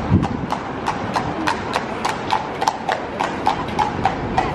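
A steady, even clip-clop of sharp, ringing strikes on a hard surface, about four or five a second.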